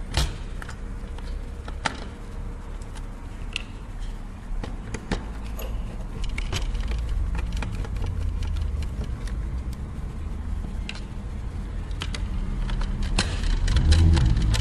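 Scattered small metallic clicks and taps of a screwdriver and tiny screws being undone and handled on a PS3 Blu-ray drive, over a steady low rumble.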